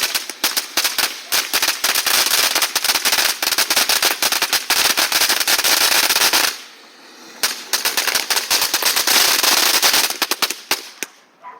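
A firework going off in a long run of rapid crackling pops, like a string of firecrackers. It stops for about a second partway through, then crackles again and ends shortly before the end.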